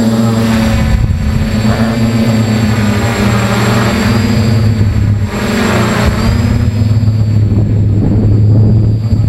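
Multirotor drone's electric motors and propellers buzzing loudly, heard close up from a camera on the drone itself. A steady low hum runs under a thin high whine whose pitch wavers slightly as the motors change speed in flight.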